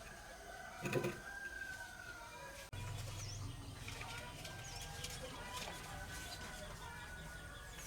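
Faint bird calls and small chirps. A low steady hum sets in suddenly about three seconds in.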